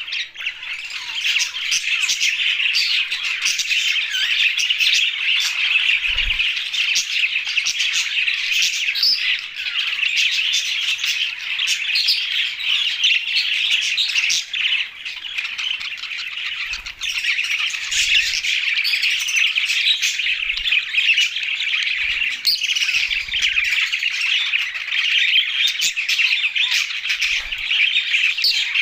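A flock of budgerigars, English and blue budgies, chattering and chirping without a break, many birds calling over one another with short squawks mixed in.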